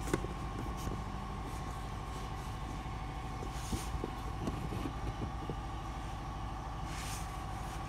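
Compressed-air supply running steadily, a low rumble with a constant whine, as air is blown into a cylinder head's ports to test how well the valves seal.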